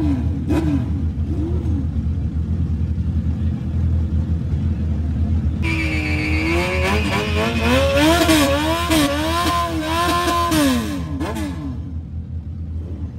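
Motor vehicle engine rumbling steadily. About five seconds in, an engine is revved in quick repeated blips, its pitch rising and falling for several seconds before it drops away near the end.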